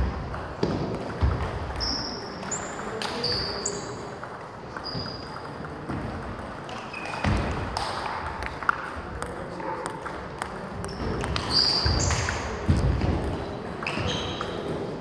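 Table tennis balls clicking off bats and bouncing on tables at an irregular pace, each hit a sharp tick with a short high ping.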